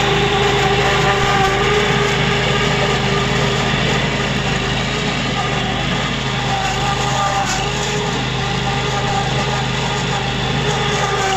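Ditch Witch 1820 trencher's 18 hp Kohler engine running steadily, its pitch unchanging, while the digging chain cuts a trench through soil.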